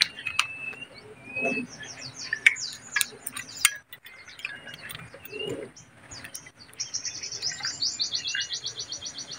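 Small birds chirping and whistling, with a rapid trill of high repeated notes, about ten a second, starting about seven seconds in. A few sharp clicks in the first half.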